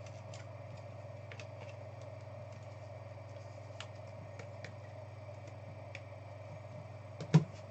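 Steady low room hum with scattered faint clicks of handling, and one sharp knock near the end as a hand reaches in toward the cardboard card box on the table.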